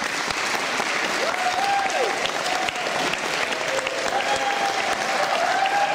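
Audience applauding, a dense steady clatter of many hands clapping, with a few voices calling out over it about a second in and again near the end.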